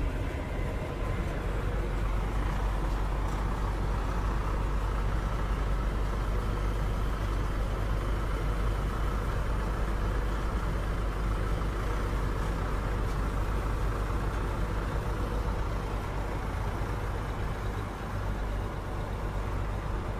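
Bizon Z056 combine harvester running steadily: a constant engine drone with a strong low rumble and machinery noise, unchanging in level.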